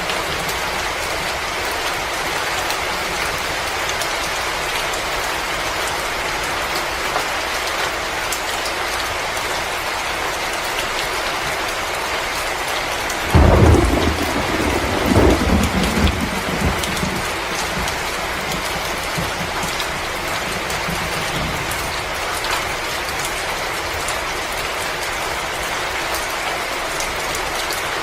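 Steady hiss of rain with fine scattered ticks, and about halfway through a low rumble of thunder that swells and fades over about three seconds.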